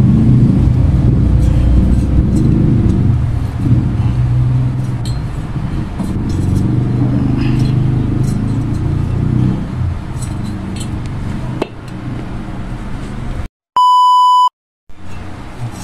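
A steady low rumble with a few faint knocks and clicks runs for most of the time, then cuts off to silence. A single steady test-tone beep, under a second long, follows about fourteen seconds in.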